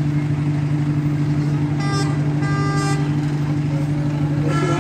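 Steady low drone of a diesel engine running at an even pace, with two short vehicle horn toots about two seconds in and another toot near the end.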